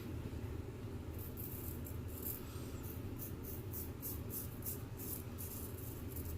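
Straight razor scraping through lathered stubble in a run of short, quick strokes, about three a second, starting about a second in, over a steady low hum.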